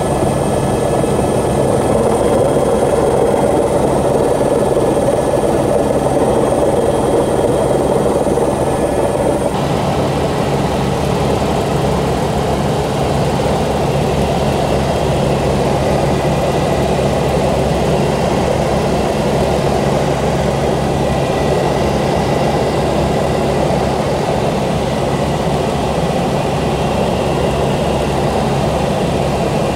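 Helicopter engine and rotor noise heard from inside the cabin: a steady, loud drone with a low hum. A thin high whine cuts off abruptly about ten seconds in, where the tone of the drone shifts slightly.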